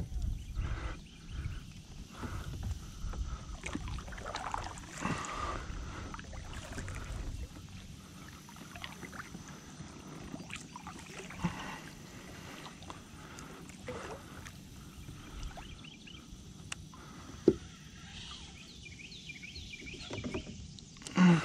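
Plastic fishing kayak rocking and knocking as gear is handled on board, with scattered clicks and rustles. There is a quick run of light ticking near the end, and a short, loud low knock just before it ends.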